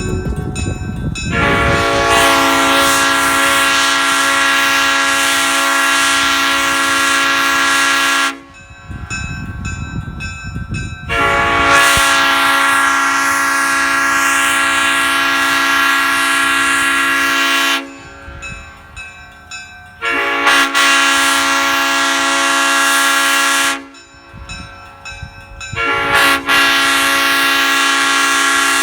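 Replica Leslie S5D five-chime air horn with bronze Tabby power chambers, sounding its high-pitched five-note chord in four long blasts; the last blast is still sounding at the end. A low rumble fills the gaps between blasts.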